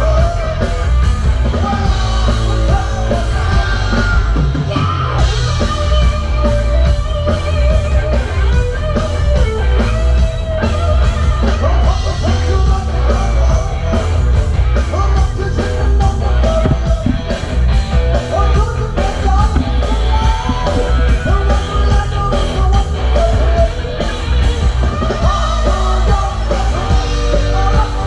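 Loud rock music with a singing voice over a heavy bass and a steady drum beat.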